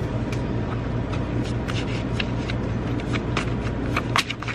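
A steady low mechanical hum runs underneath, with scattered light clicks and taps. Near the end these grow busier, with one sharper click, as paper cards are handled.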